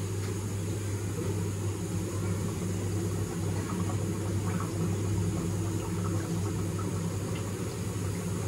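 Steady low hum of a motor running without change.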